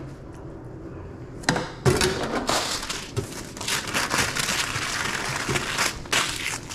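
Paper sandwich wrap rustling and crinkling as a hot dog is rolled up in it by gloved hands. It starts about a second and a half in with a couple of light knocks, and the crinkling runs on until shortly before the end.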